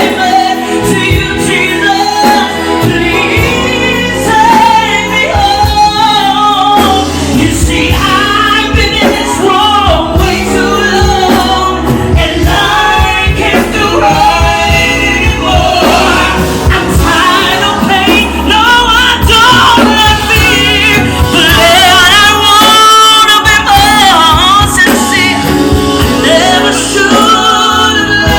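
Gospel vocal group singing a medley with wavering, held notes over instrumental backing with a steady beat.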